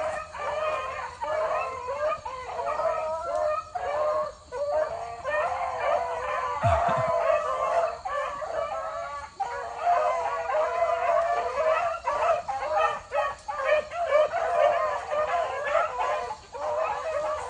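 A pack of beagles baying in full cry on a rabbit, several voices overlapping with no break.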